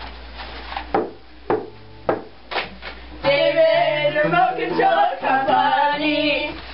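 A few separate clicks or knocks, then, from about three seconds in, a voice singing held notes for about three seconds.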